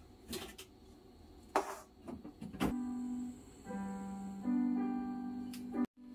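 A few light clicks and knocks, then soft piano music that comes in about two and a half seconds in and plays slow, held notes.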